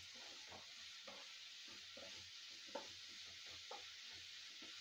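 Chopped onions frying faintly in oil in a ceramic-coated kadai, with a light steady sizzle, while a wooden spatula stirs and scrapes them in short strokes about twice a second.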